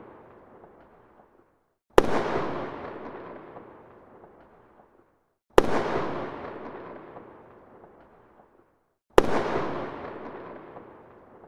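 Large single firecracker exploding three times, about three and a half seconds apart. Each is a sharp bang followed by a long echo that fades away over about three seconds, the tail of an earlier bang dying out at the start.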